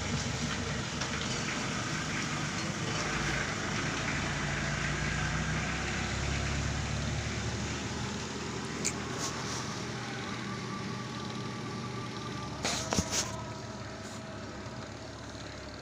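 Spin-dryer motor of an LG WP-600N twin-tub washing machine running under test on a substitute 3.7 µF capacitor: a steady whirring hum that slowly gets quieter over the second half, with a few short knocks near the end.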